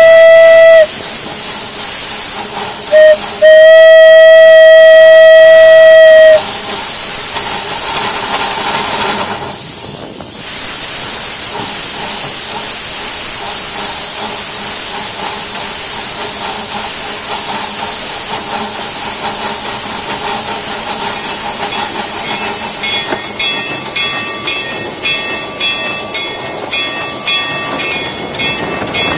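Small steam locomotive's whistle sounding a crossing signal: the end of one blast, a short toot about three seconds in, then a long blast of about three seconds. The locomotive then runs on with a steady hiss of steam and rail noise, and thin, pulsing squeals come in near the end.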